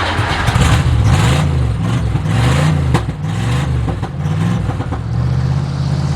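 A vehicle engine revving up and down several times in quick succession, then settling to a steady run about five seconds in.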